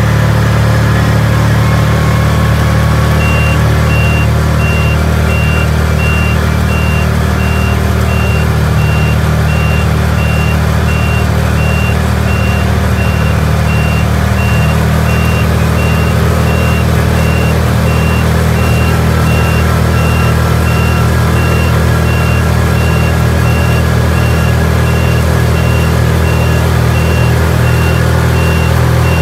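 Side-by-side utility vehicle driving on a wet road: a steady engine and drivetrain drone. A high-pitched beep starts a few seconds in and keeps repeating at an even pace.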